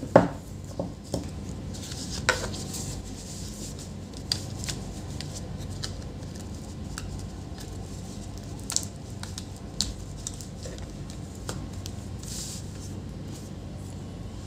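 Scattered clicks and light knocks of small objects being handled on a work surface, the sharpest just after the start, over a steady low hum.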